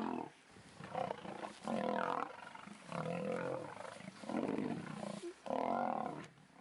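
Male lions fighting, giving a series of about six harsh roars with short breaks between them.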